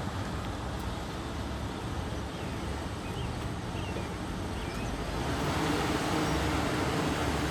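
Outdoor wind noise with a distant car engine running, growing louder from about five seconds in. A few faint high chirps sound in the middle.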